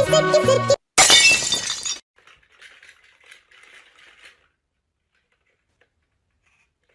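Glass shattering: a single sudden loud crash about a second in, fading over about a second, followed by faint scattered tinkling for a couple of seconds.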